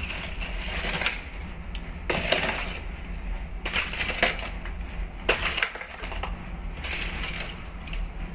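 Wooden spatula stirring and scraping frozen bitter gourd slices, sliced onion and green chillies around a pan, in several rough strokes a second or so apart, over a steady low hum.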